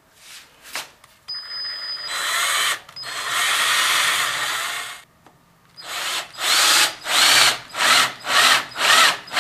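Power drill countersinking screw holes in a wooden miter runner. It runs in two longer bursts, then is pulsed on and off in short quick bursts about twice a second, the motor speeding up with each squeeze of the trigger.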